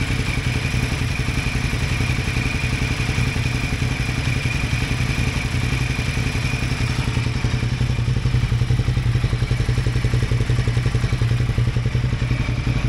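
Ducati twin-cylinder motorcycle engine idling steadily on a workshop lift, running evenly after an ignition misfire on the front cylinder was dealt with.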